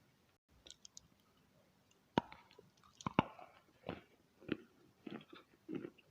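A person biting and chewing wet chalk: a few sharp crunching bites around two to three seconds in, then steady chewing strokes a little more often than once a second.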